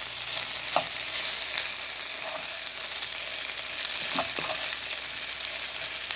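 Sliced potatoes sizzling in hot oil in a skillet, a steady frying hiss as the water cooks out of them. A few brief knocks are heard about a second in and twice around four seconds in.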